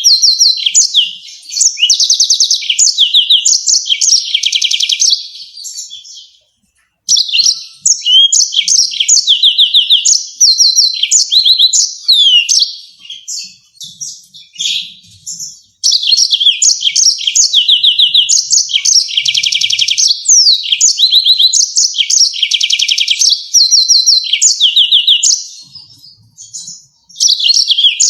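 Yellow-fronted canary singing: long phrases of rapid, high trills and quickly repeated notes, with short pauses between phrases and a brief silent break about six seconds in.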